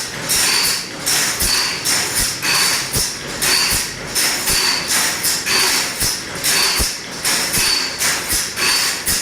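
Metal file rasping across the teeth of a large crosscut saw in steady, even strokes, about two a second, each with a faint metallic ring: the saw being sharpened.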